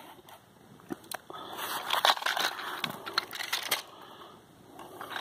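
Small brass .22 LR rimfire cartridges rattling and clicking as a box of Browning BPR rounds is slid open and the rounds are tipped out of its plastic tray onto a padded cloth case. The rattling is busiest from about a second and a half in until nearly four seconds in.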